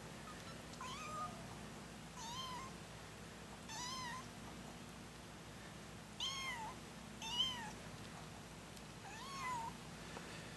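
20-day-old kitten mewing: six short, high-pitched mews a second or two apart, each rising and then falling in pitch.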